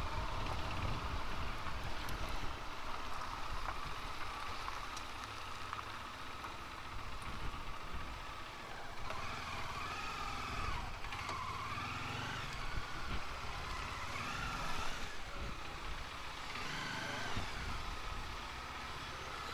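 Bajaj Dominar 400 motorcycle on the move: steady engine and road noise with wind on the microphone. A wavering high tone comes and goes in the second half.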